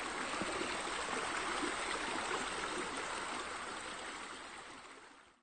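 Steady running, splashing water like a stream or pool water feature, starting abruptly and fading out over the last second or so.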